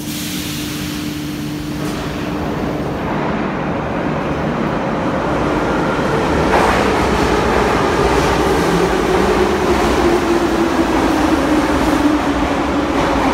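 Em-series (81-501/502/503) metro train pulling away from the platform, its running noise growing steadily louder as it gathers speed, with a motor hum and a single clunk about six and a half seconds in.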